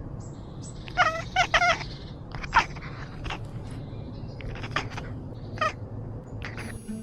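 A series of short chirping calls: three in quick succession about a second in, then single chirps every second or so, over a faint steady background hiss.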